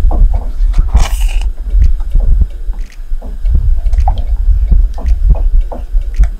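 Silicone spatula stirring thick chocolate sauce in a nonstick pot, with wet squelching strokes through the sauce and against the pot, over a heavy low rumble. A short louder rush of noise comes about a second in.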